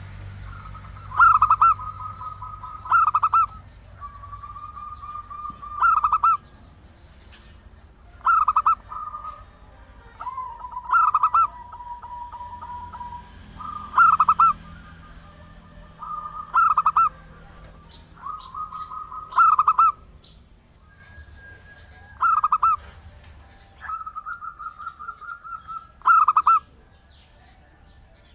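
Female zebra dove (perkutut) cooing as a lure call for males: about ten loud, short, rapid stuttering coo phrases every two to three seconds, with softer trilled coos between them.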